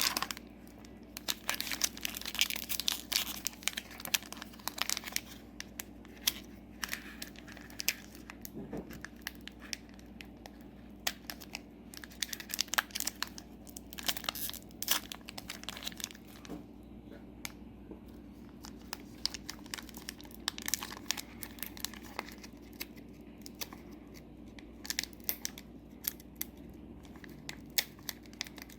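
Foil wrapper of a Disney Lorcana booster pack crinkling and tearing as it is opened by hand, in irregular crackles with quiet gaps between.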